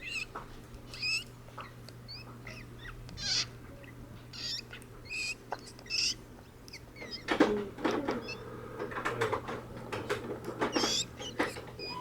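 Golden hamster breathing with its mouth open and snoring, making short, high-pitched squeaky wheezes at irregular intervals of about one a second.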